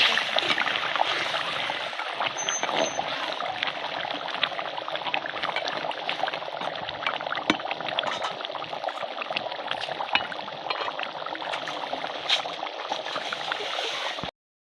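Potato masala curry simmering in a pan: a steady liquid bubbling with many fine crackles, fading a little and cut off abruptly near the end.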